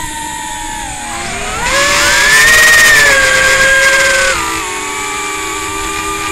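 Motors and propellers of a small brushless FPV drone whining, picked up by its onboard micro camera. The pitch rises about a second and a half in as the motors speed up, holds high, then drops sharply about four seconds in.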